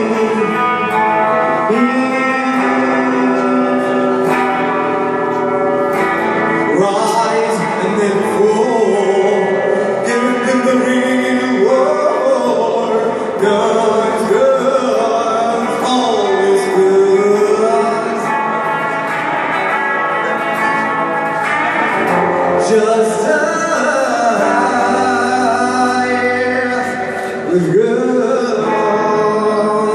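A man singing live into a microphone while strumming an electric guitar, both amplified. The music drops briefly near the end, then carries on.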